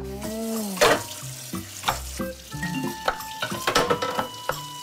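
Food sizzling in a hot frying pan, with a few sharp, uneven knocks of a knife chopping carrots on a wooden cutting board. Soft background music plays under it.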